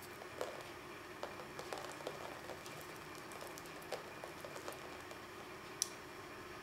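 Drips of house paint spattering onto a flat canvas: scattered light pats and ticks, irregular and a second or less apart, over a steady hiss.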